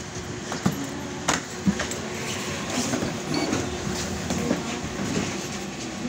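Inside a BKM 60102 tram car, a steady running hum with a held tone, and a few sharp knocks in the first two seconds.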